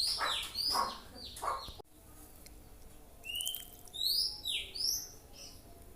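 Songbird calling: a run of loud, rasping notes mixed with high chirps breaks off abruptly, then after a short pause comes a series of clear, high whistled notes that slide up and down.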